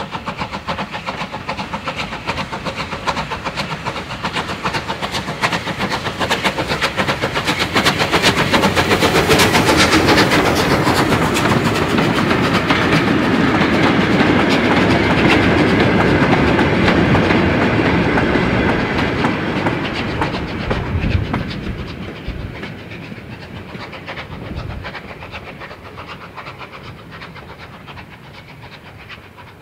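Bulleid Light Pacific steam locomotive 34070 Manston working past close by with a train of hopper wagons. The sound builds to its loudest as the engine passes, then the wagons' wheels clatter over the rail joints and the sound fades away.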